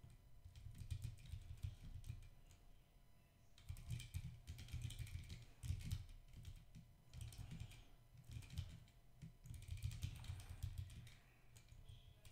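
Computer keyboard typing: several runs of quick keystrokes separated by short pauses.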